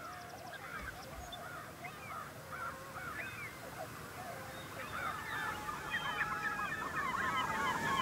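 A crowd of bald eagles calling, many short chattering calls overlapping, growing louder and busier toward the end.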